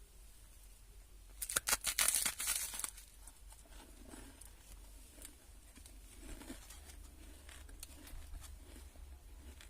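Plastic snack-pastry wrapper crinkling and tearing in a loud burst about a second and a half in, followed by faint scattered rustles.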